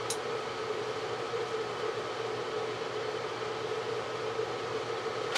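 Steady background room noise: a constant low hum and hiss with a faint steady whine, and one small click just at the start.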